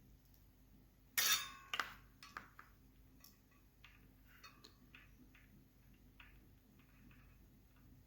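Handling noises at a soldering job: two short, loud scraping knocks a little over a second in, then light clicks and taps, over a faint steady low hum.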